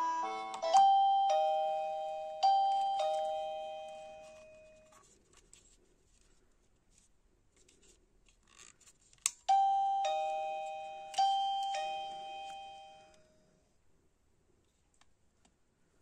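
Plug-in chime receiver of a motion-sensor alarm playing a loud two-tone ding-dong, a higher note then a lower one, twice in a row about a second in. After a sharp click it plays two more ding-dongs about ten seconds in, each letting its notes ring out and fade.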